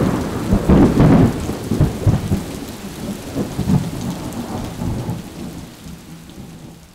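A sudden thunderclap followed by rolling thunder over falling rain, the rumbles fading away over several seconds.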